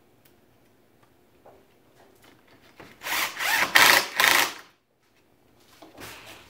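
DeWalt cordless impact driver driving a pocket screw into a pine frame joint: one stuttering burst of about a second and a half, three seconds in. A shorter, quieter noise follows near the end.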